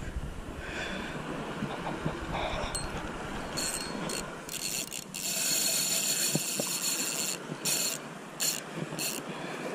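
Spinning reel's drag slipping and paying out line as a big hooked ray runs: a steady buzz that grows louder about five seconds in, then comes in short spurts near the end.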